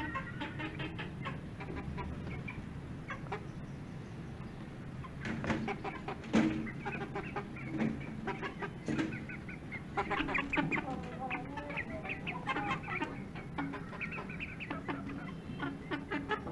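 Aseel chickens clucking in wire cages, with scattered clicks and a sharp knock about six seconds in; the clucking grows busier after about ten seconds.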